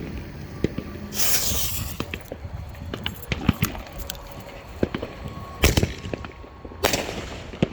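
A consumer artillery-shell firework: the lit fuse hisses for about a second, then a little over five seconds in the shell launches from its mortar tube with a single loud thump, followed about a second later by another loud hiss.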